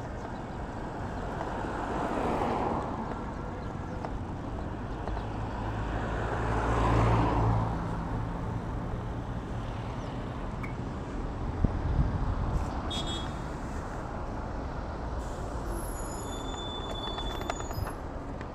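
Road traffic: motor vehicles passing over a steady rushing noise, the loudest going by about seven seconds in with a low engine hum.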